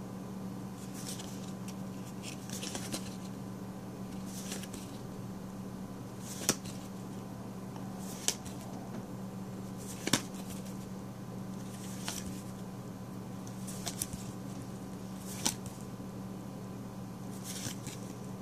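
Magic: The Gathering trading cards being flipped through by hand, one card moved to the back of the stack at a time. Each move makes a short papery slide of card against card, about every two seconds, and a few give a sharp snap.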